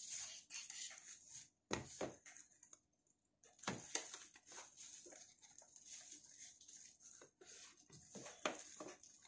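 Faint handling sounds of a cardboard smartphone retail box being turned over in the hands on a desk: scattered light taps and rustles, with a few louder knocks about two, four and eight and a half seconds in.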